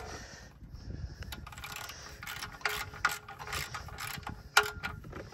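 Socket ratchet clicking in short runs as it is swung back and forth on a bolt under the car, with one sharper, louder click late on.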